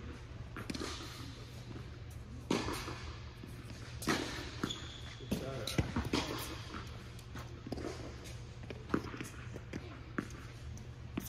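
Tennis balls bouncing and knocking on an indoor hard court between points, with scattered footsteps, distant voices in the hall and a steady low hum.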